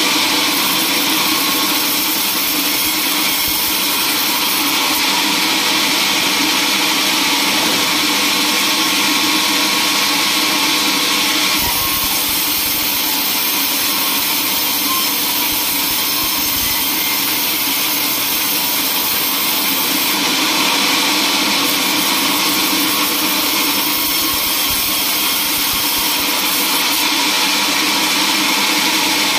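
Band sawmill running, its band blade cutting lengthwise through a teak log: a loud, steady machine noise.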